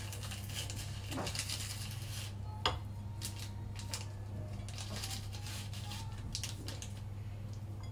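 Light clicks and scrapes of wooden chopsticks against a ceramic bowl and a seasoning sachet, with one sharper click about two and a half seconds in, over a steady low hum.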